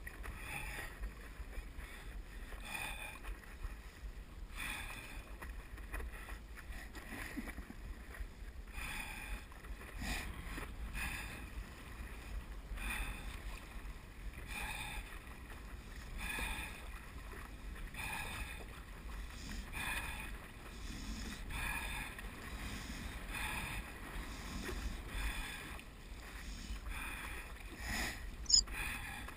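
Stand-up paddleboard paddle strokes splashing in the water, one every second and a half to two seconds, over a steady low rumble of wind and water. A single sharp knock near the end.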